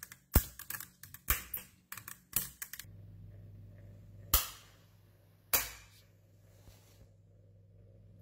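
Small neodymium ball magnets clicking as they snap onto one another and onto a block of cube magnets: a quick run of sharp clicks in the first three seconds, then two single snaps about a second apart.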